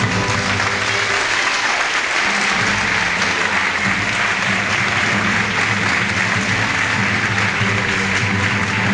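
Crowd breaks into sustained applause that swells over the first couple of seconds and then holds, with band music going on underneath. It rings in the reverberant church interior.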